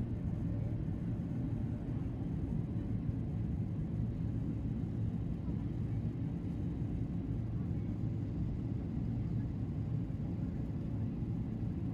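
Steady low rumble of a jet airliner's engines and rushing air, heard inside the passenger cabin during the descent to land.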